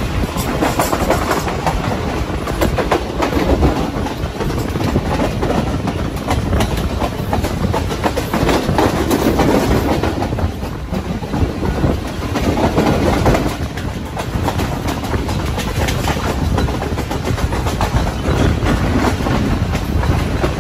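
Passenger train running along the track: a steady rumble with the clickety-clack of wheels over rail joints, swelling and easing in loudness.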